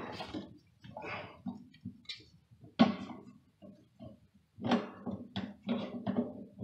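Garbage disposal unit knocking and scraping against the sink's metal mounting ring as it is lifted and fitted into place: irregular knocks and rattles, with one sharp knock about halfway through and a quicker run of knocks near the end.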